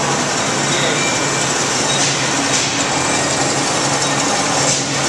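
Metal-cutting bandsaw running steadily, its blade sawing through a steel angle with coolant on the work: a constant machine hum under an even hiss.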